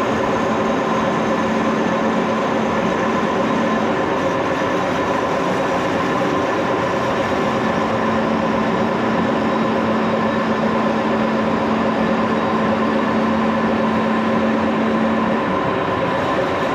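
Axelson lathe running steadily with its spindle slowed to 473 rpm: an even mechanical whir with several steady tones. A low tone in it drops out about four seconds in, returns a few seconds later and stops again shortly before the end.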